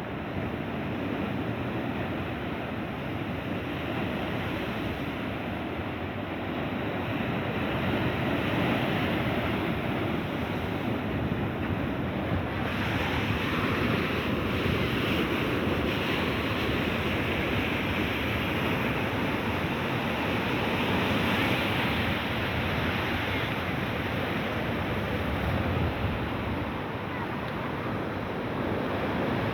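Sea waves breaking and washing in, a steady rush with wind on the microphone; the surf grows brighter and louder a little under halfway through.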